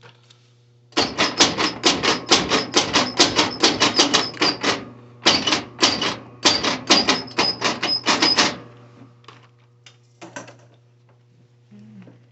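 Rapid metal-on-metal strikes on the safe, about seven a second, in three runs with short pauses between, each strike ringing with a high note.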